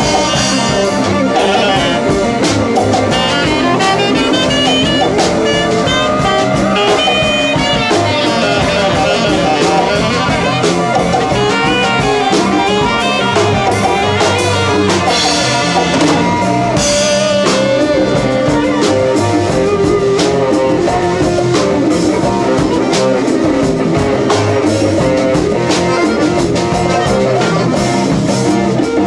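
Live band playing jazzy blues: saxophone lines over a small acoustic stringed instrument and a drum kit.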